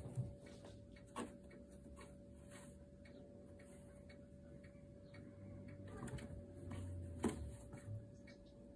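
Kitten moving inside a small cardboard box: a few faint scratches and taps on the cardboard, the sharpest about seven seconds in, over a faint steady hum.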